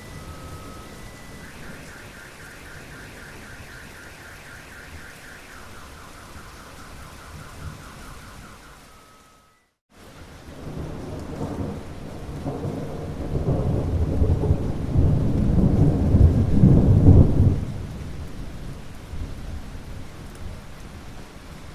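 Steady rain with a deep rumble of thunder that builds a few seconds after a brief cut to silence midway, is loudest a little before the end, then dies back to rain. In the first half a faint repeating tone pulses at two pitches under the rain.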